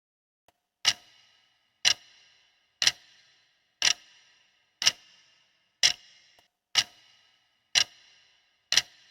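Countdown timer sound effect: a clock ticking once a second, each tick a sharp click with a brief ring.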